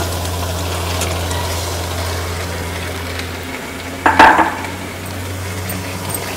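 Boiled potato pieces tumbling into a steel kadhai of chutney masala frying in ghee, over a steady low sizzle, with a louder clatter against the pan about four seconds in.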